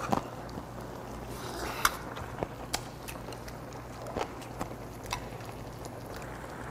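Eating sounds: chewing, with scattered sharp clicks of chopsticks and a metal ladle against bowls and the stew pot, over a steady low hum.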